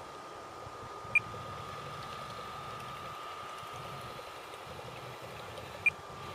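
Radio-controlled model paddle steamer running on the water: a steady thin whine from its drive over the splashing churn of its paddle wheels. Two short, sharp high chirps, about a second in and again near the end.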